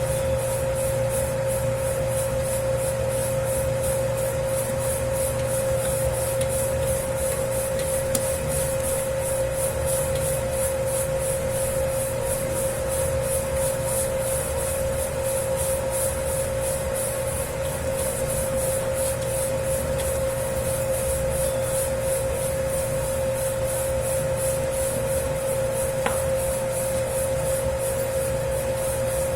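Dough-kneading machine mixing a 10 kg batch of pizza dough: a steady motor hum with one held tone, and an even swishing rhythm of about three to four beats a second as the dough is worked.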